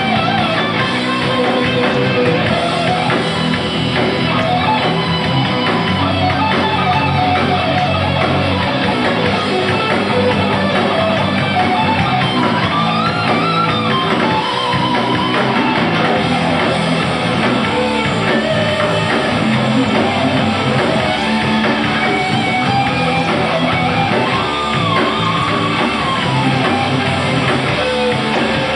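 Heavy metal band playing live: distorted electric guitar over bass and drums, with a lead line that rises and falls in pitch.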